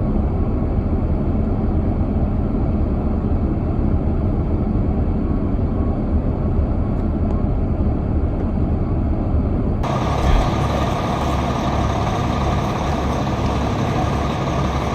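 Steady low rumble of heavy vehicle engines running outdoors, with an abrupt cut to a brighter, noisier recording of the same kind of rumble just under ten seconds in.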